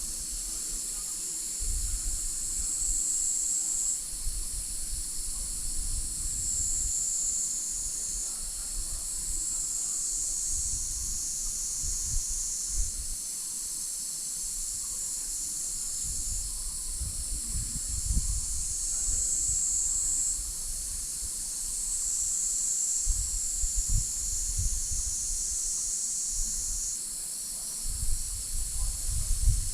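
Dense insect chorus: a continuous high buzzing that swells into louder stretches lasting a second or two, every few seconds. Irregular low rumbles come and go underneath.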